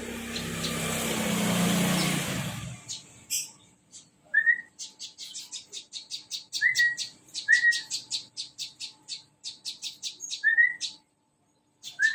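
A loud rushing noise for the first few seconds. Then a small prinia (perenjak) sings a rapid trill of fast repeated high notes in several bursts, mixed with short, lower slurred chirps.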